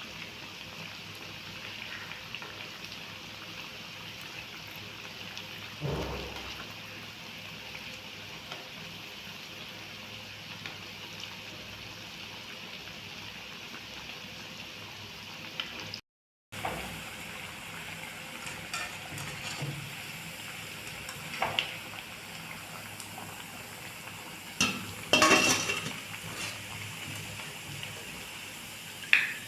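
Food sizzling steadily in hot oil in a pan, with a few knocks and clinks of a utensil against the pan.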